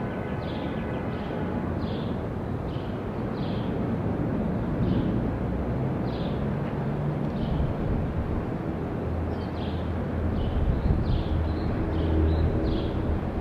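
City rooftop ambience: a steady low rumble of traffic, with a small bird chirping over it, about one or two short chirps a second. A low engine drone swells for a few seconds near the end.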